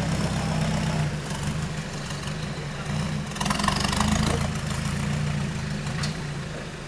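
Lifted 4x4 SUV's engine running at low revs as it crawls away over a dirt track, growing fainter. About halfway through there is a brief louder burst of noise, and a single click comes near the end.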